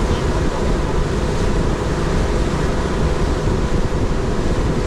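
Boat engine running steadily with the boat under way, with wind on the microphone.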